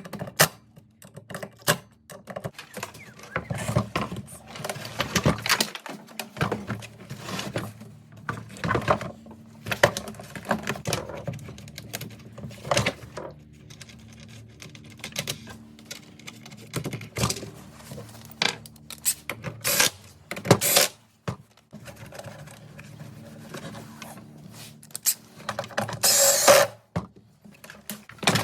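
Irregular clicks, knocks and rubbing of hand tools and parts being handled while working on a two-stroke backpack blower's top end, with a short burst of hissing noise near the end.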